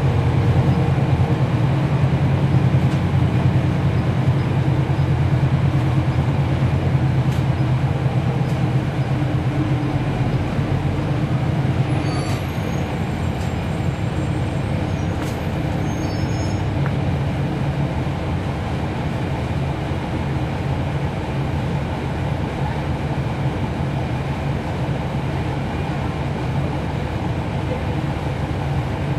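Cummins ISL9 diesel engine of a 2011 NABI 40-SFW transit bus, heard from on board, running steadily as the bus drives along. The drone eases a little about twelve seconds in, and a few faint high squeaks come near the middle.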